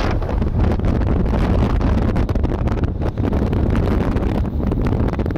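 Wind buffeting the microphone of a camera carried on a moving vehicle: a loud low rumble with rapid crackling gusts.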